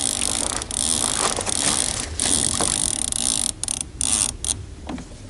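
Fishing reel's line-out clicker zinging, a fast steady ratcheting as a catfish runs with the bait and pulls line off the reel. It breaks up and stops about four and a half seconds in, as the rod is taken out of its holder.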